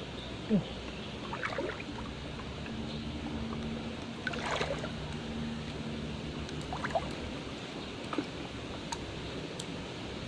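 Water trickling and gurgling, with a few short plops, the loudest about half a second in. A faint low steady hum sounds for a few seconds in the middle.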